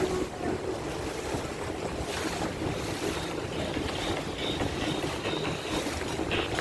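Boat under way at sea: a steady rush of wind on the microphone and water against the hull, over a low rumble.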